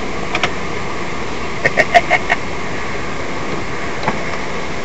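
Steady running noise of a cruiser motorcycle idling at a standstill, picked up by a cheap camera microphone mounted on the bike. A quick cluster of short sounds comes about two seconds in.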